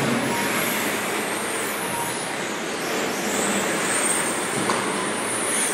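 Radio-controlled race trucks running laps: a steady rush of motor and tyre noise with high-pitched motor whines that rise and fall as the trucks speed up and slow down.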